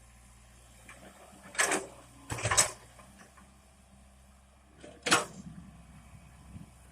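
Komatsu PC100 excavator working, its engine a faint steady hum, with three short loud knocks about one and a half, two and a half and five seconds in.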